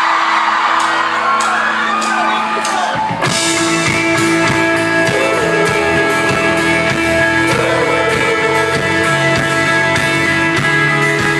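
Live pop-rock band starting a song: a held chord under a cheering crowd, then drums and bass come in about three seconds in and the full band plays on.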